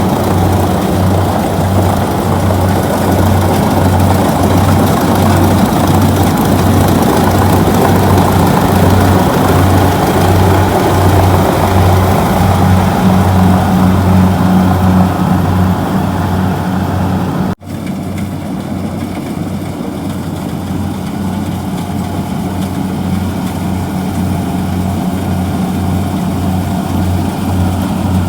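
Kubota DC-70G rice combine harvester's diesel engine running steadily, a low hum pulsing about twice a second under mechanical clatter. About two-thirds of the way in the sound drops out for an instant and comes back quieter and duller.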